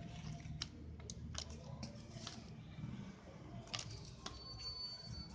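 Stiff cardstock panels and photo cards handled by hand, with a few sharp taps and clicks of card being flipped and pressed down, and light rustling in between.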